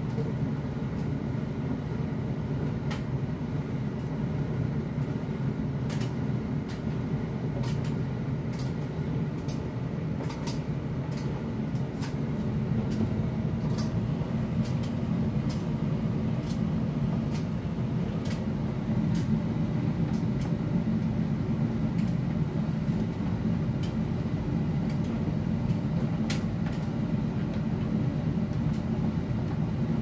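Electrolux tumble dryer running mid-cycle: a steady low hum and rumble from the turning drum, a little louder about halfway through, with scattered light clicks.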